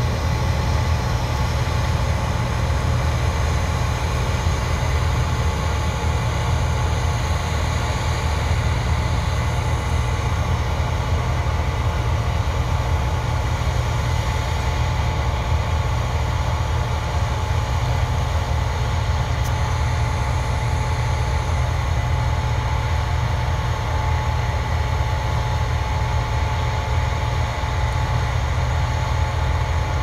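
Case IH 9240 tracked combine running steadily while shelling corn: a constant low diesel rumble with a steady whine from its machinery.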